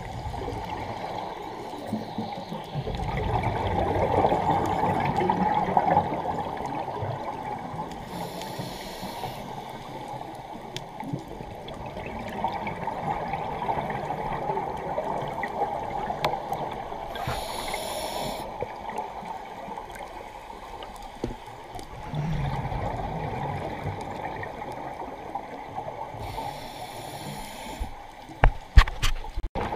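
Scuba diver breathing through a regulator underwater: a short hiss of inhalation about every nine seconds, each followed by a long gurgling rush of exhaled bubbles. A few sharp clicks near the end.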